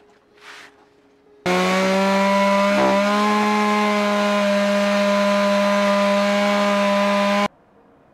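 Chainsaw running flat out, sawing into a log. Its pitch dips briefly just over a second after it starts, then holds steady until it cuts off abruptly.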